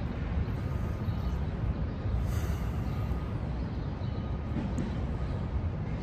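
Steady low rumble of outdoor city background noise, with no distinct event standing out.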